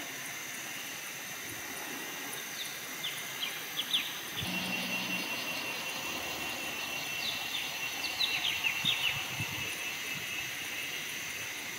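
Forest ambience: a steady high insect-like hum with wild birds giving short, quick downward-sweeping chirps in two bursts, about three seconds in and again around eight to nine seconds.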